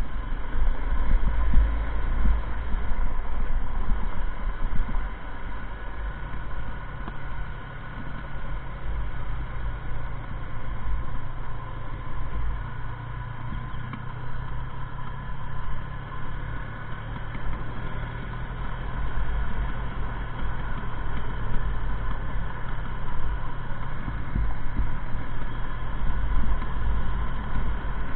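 Motorcycle engine running steadily at road speed, with wind rumbling over the microphone.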